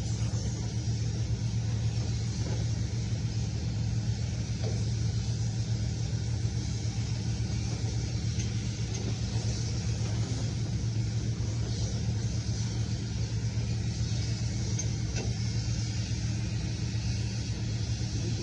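A steady, unchanging low mechanical rumble with a hiss above it, such as an engine or running machinery.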